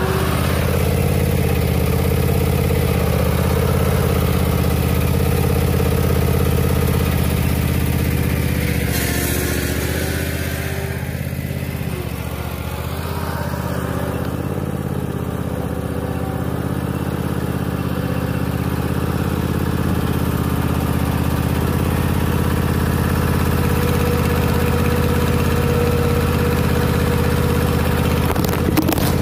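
John Deere Z335E zero-turn mower engine running steadily through a makeshift upright exhaust as the mower is driven around. It fades somewhat as the mower moves away about twelve seconds in, then grows louder again. A few handling clicks come near the end.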